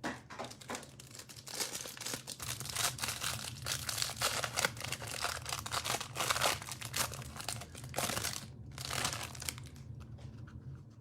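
Packaging of a trading-card hanger box being torn open and handled, with dense, irregular crinkling and tearing and a louder rip a little after eight seconds.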